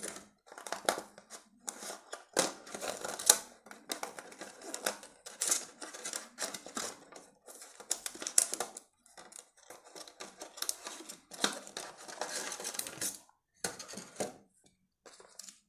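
A moulded plastic packaging tray crinkling and clicking in irregular bursts as a neckband earphone set is worked loose and pulled out of it. The handling noise stops about thirteen seconds in, with a few more short bursts near the end.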